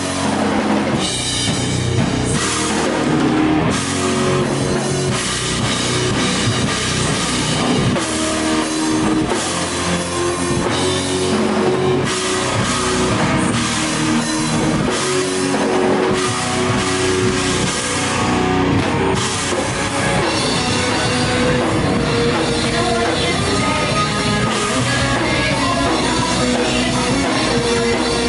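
Live rock band playing loud: a drum kit and an electric guitar.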